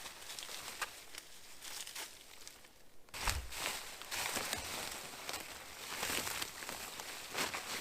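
Old, weathered plastic tarp being pulled down and crumpled, crinkling and tearing in irregular rustles, with a dull thump about three seconds in.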